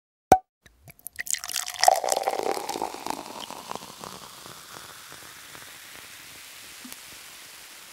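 Intro sound effect: one sharp click, then a scatter of small clicks that swells into a dense patter and slowly fades into a long, faint hiss.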